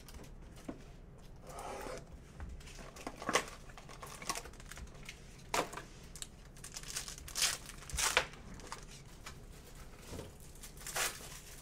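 Plastic wrapper of a trading-card pack crinkling and tearing as it is handled and ripped open, in an irregular run of short crackles with a few sharper rips.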